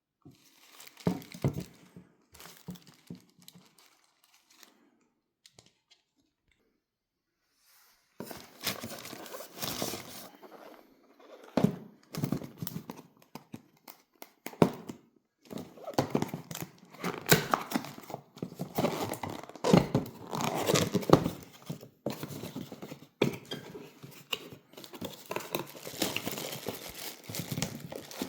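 Packaging being handled while unboxing: crinkling and tearing of wrapping, with a few sharp knocks. It comes in scattered rustles at first, stops for a few seconds, then runs almost without a break.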